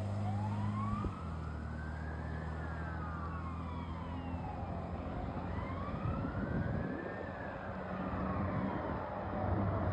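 Fire engine's siren on a slow wail, its pitch rising and falling about twice, over the truck's low engine drone, which drops in pitch about a second in. The sound is that of an engine running to an emergency call.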